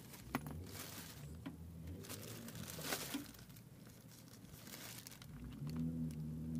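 Clear plastic bag crinkling around a car door speaker as it is handled, with scattered small clicks and rustles. A low steady hum comes in near the end.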